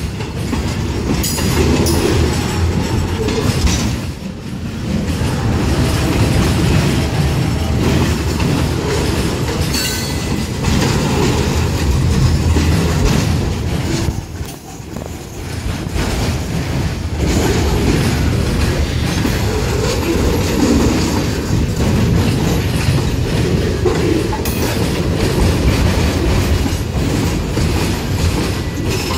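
Fully loaded freight train rolling past: steel wheels on the rails with a steady clickety-clack as the flatcars' wheels cross the rail joints. The noise dips briefly twice.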